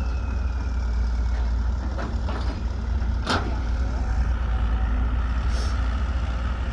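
Heavy diesel engines of an excavator and dump truck running with a deep, steady rumble, with one short sharp burst about three seconds in.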